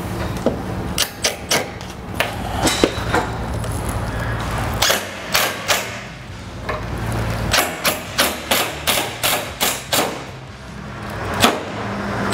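Cordless impact driver driving a screw into diamond-plate aluminum. It runs in short bursts, giving strings of sharp rattling knocks, several a second.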